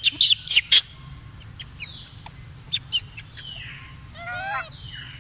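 High-pitched animal calls: a quick run of four sharp squeaks at the start, three more about three seconds in, then a longer wavering squeal with a trembling pitch, with a few falling whistles in between.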